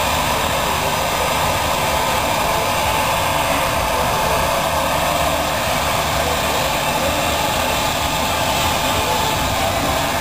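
Electric air blower running steadily, pumping air through a hose into an inflatable water walking ball.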